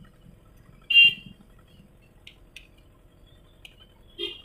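Handling clicks of metal tweezers against a power bank's circuit board and case: one sharp click about a second in, a few faint ticks, and another click near the end.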